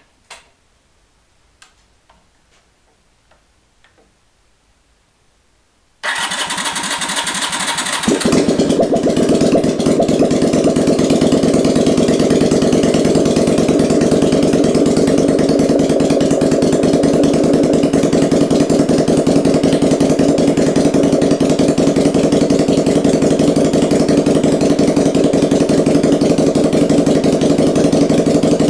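A 1981 Honda GL500 V-twin motorcycle engine, running standalone off its own battery and fuel tank, is cranked by its electric starter for about two seconds and catches, then settles into a steady run. A few faint clicks come before the starter.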